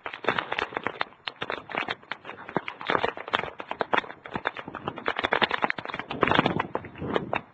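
Heavy typhoon rain drumming on a hard surface: dense, irregular tapping and crackling that swells and eases, heard through a cellphone microphone.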